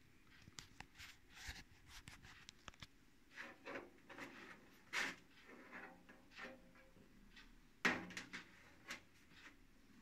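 Handling noises from an MS Industrial Cyclops V PC case being moved and touched on a wooden table: scattered light clicks and knocks, the loudest about five seconds in and near eight seconds.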